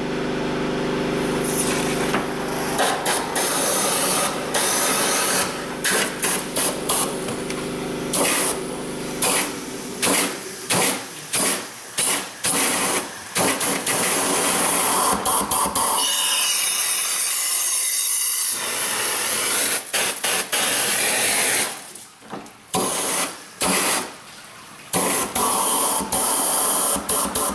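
An air-and-water flush gun blasts compressed air and water through the engine's open coolant passages, hissing and spraying in bursts as the trigger is pulsed on and off many times. There is a quieter stretch about two-thirds of the way through. It is flushing loose the sludge from a badly fouled cooling system.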